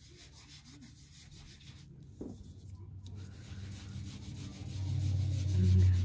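Ink sponge being rubbed back and forth over cardstock to apply ink, a soft scrubbing that grows louder in the last two seconds.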